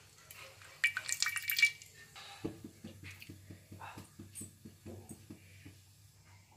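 Cooking oil poured into an iron kadai: a short, loud splashing pour about a second in. It is followed by a run of faint, quick ticks, about five a second.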